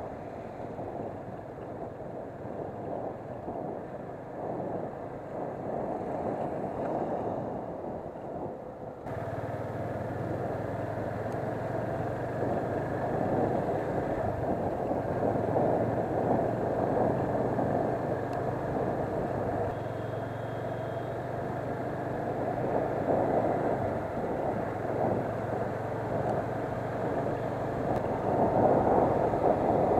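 Motorcycle under way at road speed: a steady rush of wind and road noise with the engine's low hum underneath, growing gradually louder. About nine seconds in, the sound abruptly turns brighter and the hum becomes clearer.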